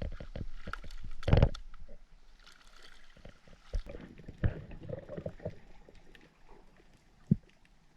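Water sloshing and gurgling with scattered clicks and knocks, a louder rushing burst about a second and a half in, and a few sharp low knocks later on.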